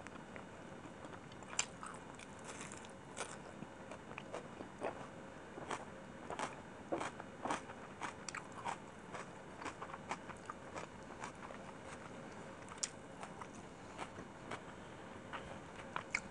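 Close-miked chewing of chicken biryani: a string of irregular wet mouth clicks and smacks with some crunching, busiest through the middle.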